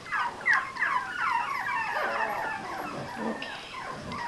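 A litter of four-week-old puppies whining, with many short, high cries that each fall in pitch, overlapping several a second. The cries come thick in the first two seconds and grow sparser after.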